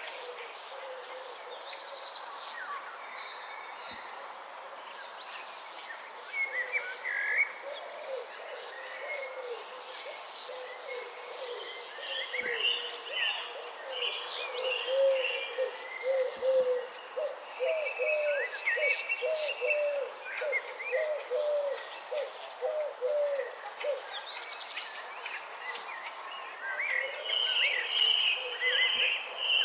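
Nature ambience: insects or crickets trilling in a steady high-pitched drone, with scattered bird chirps and calls. Around the middle the insect drone fades for a few seconds, and a bird gives a long run of repeated low hooting notes, about two a second.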